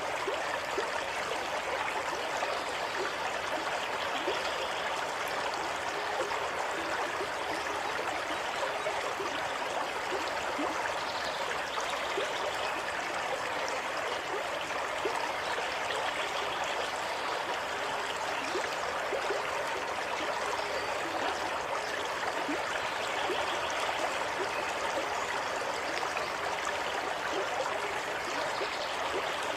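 Water running steadily over a shallow stream or brook, a constant rushing with small trickling and gurgling glints.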